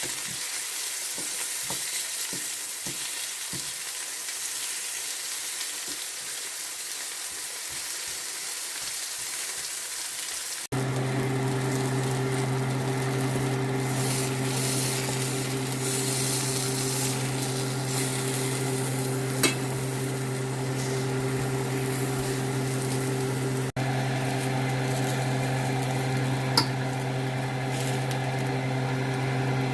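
Sliced zucchini, squash and eggplant frying in oil in a pan, with a steady sizzle. About a third of the way in, the sound cuts and a steady low electrical hum joins the sizzle for the rest.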